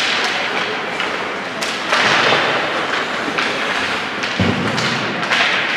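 Ice hockey play: skates scraping on the ice, with sticks and puck clattering in a series of sharp knocks and a dull thud about four and a half seconds in.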